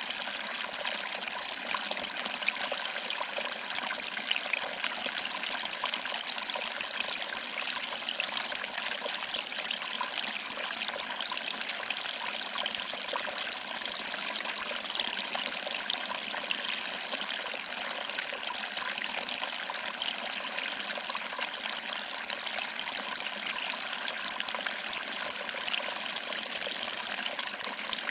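Small waterfall: water trickling over rocks and splashing into a pool, a steady even rush with fine splashing flicker.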